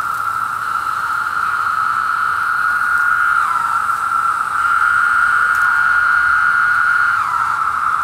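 Chorus of 17-year periodical cicadas (Brood II) droning loudly and steadily at one high pitch. A few times individual calls end in a downward slur. These are males calling to attract mates.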